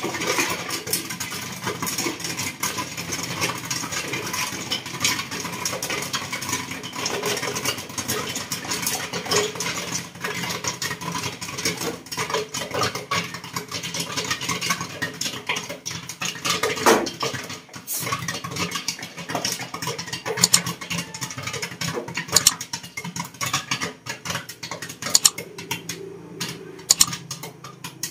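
Popcorn kernels popping rapidly inside a covered aluminium pot on a gas burner, the pot being shaken so the kernels rattle against the metal. The pops thin out and get quieter over the last few seconds as the batch nears done.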